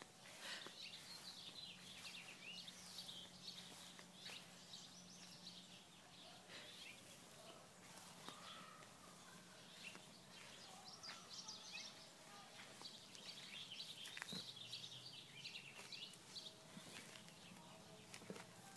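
Near silence: faint outdoor ambience with scattered faint bird chirps.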